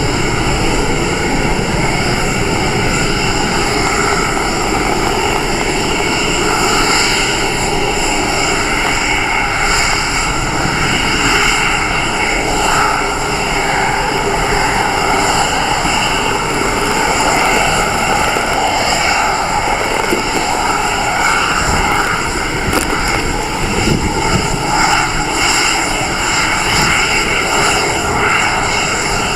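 Falcon 9 rocket's nine Merlin engines rumbling steadily as the rocket climbs away after liftoff.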